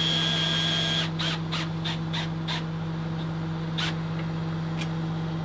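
A cordless drill whines for about a second, driving a screw, then a bird calls harshly about six times in quick succession, with two more single calls later. A steady low hum runs underneath.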